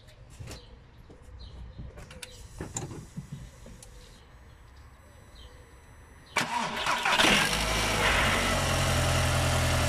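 A few faint clicks, then about six seconds in a car engine is cranked and starts, settling into a steady idle. The engine has new ignition coils fitted to cure misfires on cylinders 2 and 3, and it starts and runs fine.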